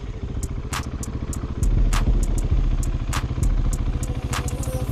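Motorcycle engine running at low speed with a steady, fast pulsing beat, heard from the rider's camera, with a music beat playing over it.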